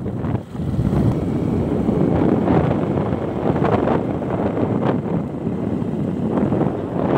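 Wind rushing and buffeting over a phone's microphone as it is carried along a road at speed, a loud, steady rumble with a brief dip about half a second in.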